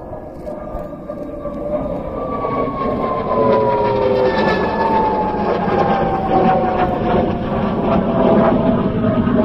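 Canadair CF-104D Starfighter's J79 turbojet howling as the jet flies past. Its whine glides slowly down in pitch and grows louder over a deep rumble.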